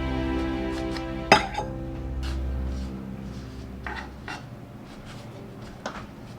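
Kitchen dishes and utensils clinking: one sharp clink about a second in, then a few lighter clicks, over soft background music that fades out about halfway through.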